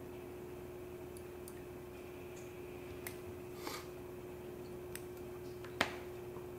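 A few small clicks and taps of fly-tying tools handled at the vise, with a brief rustle partway through and one sharp click near the end, over a faint steady hum.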